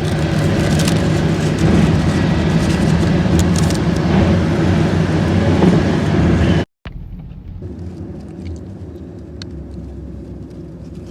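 Road and engine noise inside a moving car's cabin, a steady rumble with hiss. About two-thirds of the way through it cuts off abruptly, and a quieter steady rumble with a few light clicks follows.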